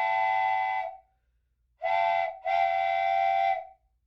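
Steam locomotive whistle sounding several notes at once in blasts. One blast ends about a second in, then comes a short blast, then a longer one.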